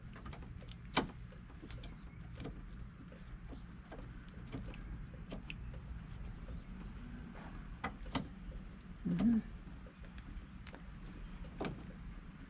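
Scattered light clicks and taps of hand work on a car battery's terminal clamps and hold-down as they are tightened by hand, with a short low sound about nine seconds in. A steady high insect drone runs underneath.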